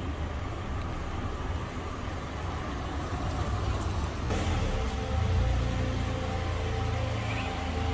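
Small hatchback's engine running in a parking garage: a steady low rumble that gets louder and fuller about four seconds in, as the car comes close and pulls into a bay.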